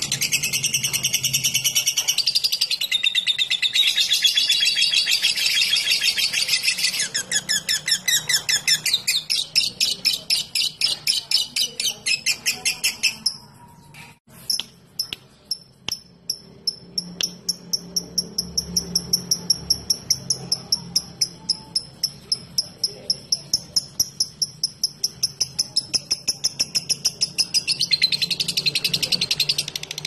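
Fischer's lovebird singing: loud, dense chatter, then long runs of fast repeated ticking notes (the 'ngetik ngekek' trill), broken by a brief pause about halfway. The dense chatter returns near the end.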